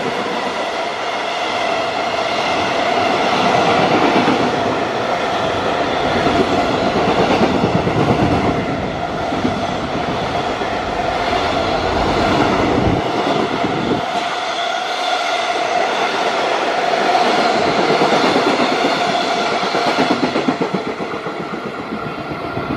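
Container freight train wagons passing at speed: a continuous rolling rumble of steel wheels on rail with clickety-clack over the rail joints, easing slightly near the end as the last wagons go by.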